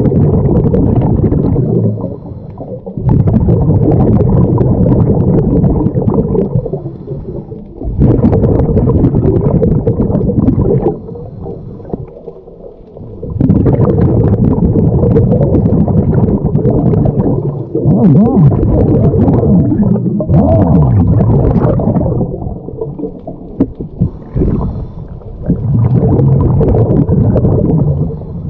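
Scuba diver breathing through a regulator underwater: long rushes of bubbling exhalation lasting several seconds each, broken by short quieter pauses for inhaling.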